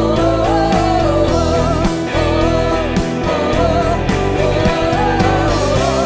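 Worship band playing a song: a singer's voice carrying the melody over electric and acoustic guitars, violin and keyboard.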